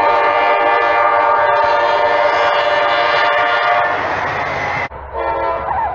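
Locomotive multi-chime air horn blowing a long, loud chord that cuts off suddenly about five seconds in. A shorter, quieter horn note follows over a low rumble.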